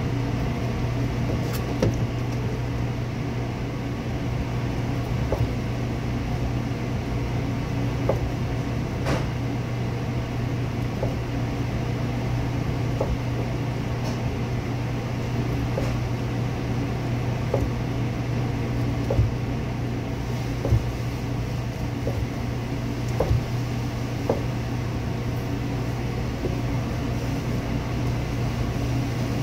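Steady low hum of kitchen machinery such as ventilation, with soft, irregular knocks of a chef's knife cutting through pork loin onto a plastic cutting board every second or two.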